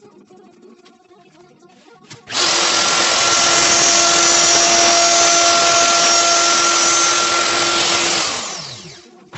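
Handheld electric power tool, most like a drill, switching on abruptly, running at a steady speed for about six seconds, then released and spinning down with falling pitch.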